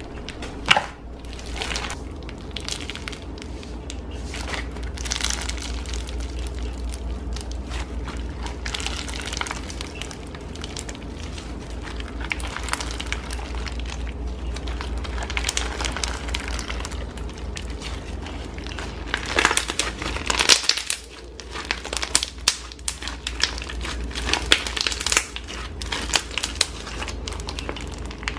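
Floam slime crackling and crunching as hands squeeze, stretch and press a large mass of white slime packed with small foam beads. A dense run of small irregular crackles, louder in a cluster about two-thirds of the way through.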